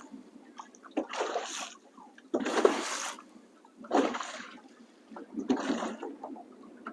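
Small waves slapping and splashing against a boat's hull, one splash about every second and a half.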